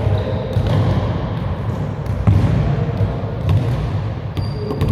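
Basketball being dribbled on a gym floor, a few irregularly spaced bounces ringing in the large hall, over a steady low rumble.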